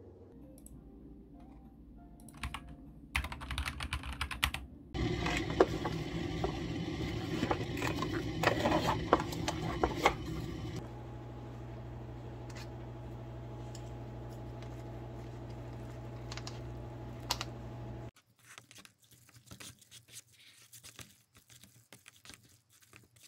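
Computer keyboard typing, clicking keystrokes in bursts. From about five seconds in the clicks sit over a louder noisy background. Near eleven seconds this gives way to a steady low hum, which cuts off suddenly near eighteen seconds, leaving scattered keystrokes.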